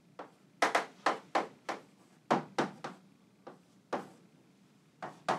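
Chalk tapping and scraping on a chalkboard as numbers and symbols are written: about a dozen short, sharp taps at an uneven pace.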